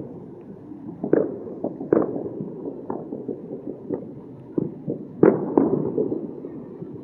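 Distant New Year's Eve fireworks and firecrackers going off at irregular intervals: a string of dull, muffled bangs over a continuous background rumble, with the loudest bangs about five seconds in.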